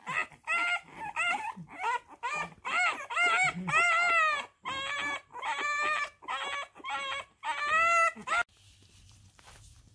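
French bulldog puppy whining and yelping in a quick string of high, rising-and-falling cries, about two a second, that stop suddenly near the end.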